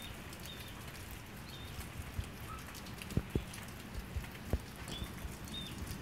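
Rain falling, with scattered drops tapping close by, a few of them louder thumps. A few faint, brief high chirps sound now and then.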